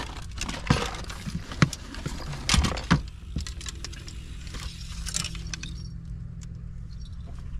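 Irregular clinks and rattles of gear being handled, densest in the first three seconds, then a steady low hum.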